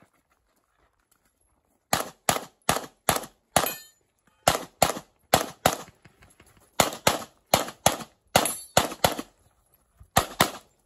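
Competition pistol fire: about twenty shots in quick strings, the shots roughly a third of a second apart, broken by pauses of about a second. The first shot comes about two seconds in, after near silence.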